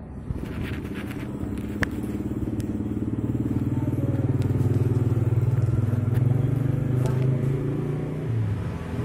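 A motor vehicle engine running steadily, growing louder over the first few seconds and easing off near the end, with a short sharp click about two seconds in.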